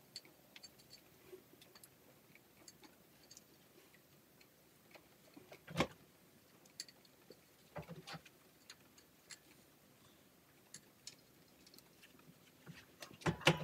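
Hand tools clicking and knocking at the wheel hub of a 1953 Gravely Model L walk-behind tractor as the wheel is unbolted: scattered light ticks, a sharper knock about six seconds in, another about two seconds later, and a cluster of knocks near the end.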